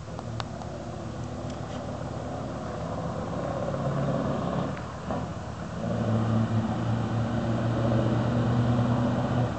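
Scania V8 diesel truck engine approaching and growing louder, with a brief drop about five seconds in. The engine note then returns stronger and holds steady before falling away near the end.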